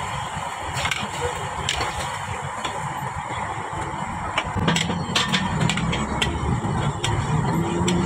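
Metal spatula scraping and clattering against a steel wok as meat and red curry paste are stir-fried, over steady sizzling. The spatula strikes are sparse at first and come thick and fast from about halfway through.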